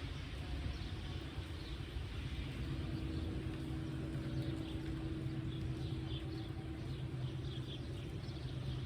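A steady low rumble, with a steady hum through the middle few seconds and faint short high chirps.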